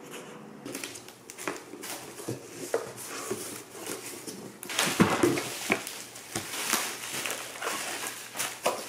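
Bubble wrap crinkling and cardboard box flaps rustling and knocking as a delivery box is unpacked by hand, getting busier and louder about halfway through.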